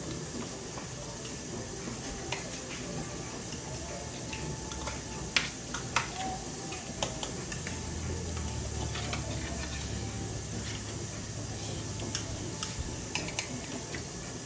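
Metal fork stirring and tossing carrots and potatoes in an enamelware roasting pan, with sharp clinks and scrapes of the fork against the pan, a few about a third of the way in and a cluster near the end, over a steady hiss.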